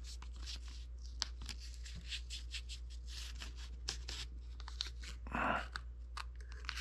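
Blue painter's tape crinkling and crackling as a strip is handled and pressed down over a wire: a run of small sharp crackles, with a louder rustle about five seconds in.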